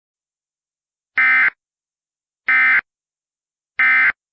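Emergency Alert System End of Message data tones: three short bursts of digital warble, each about a third of a second long and about a second apart, signalling that the flash flood emergency alert has ended.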